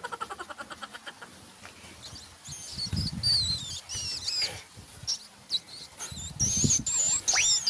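Cartoonish mouse squeaks: a fast falling chatter at the start, then a run of short, high, wavering squeaks and chirps from about two and a half seconds on, with a few low thuds among them.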